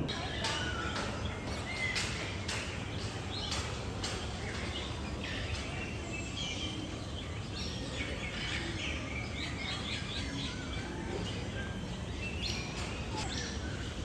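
Many birds chirping and calling, with short sharp chirps and whistled notes coming thick and fast, over a steady low background rumble.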